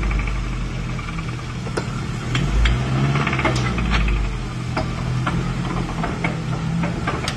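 A modified Toyota pickup crawler's engine running at low revs as the truck crawls over ruts, with a surge of throttle about two to four seconds in. Short sharp clicks and clunks are scattered through, more often toward the end.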